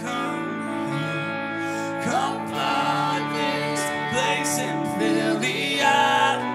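Worship song: a voice singing over sustained instrumental chords.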